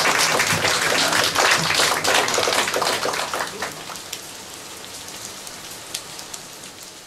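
Rain falling, a dense patter of drops that fades out gradually over the last few seconds.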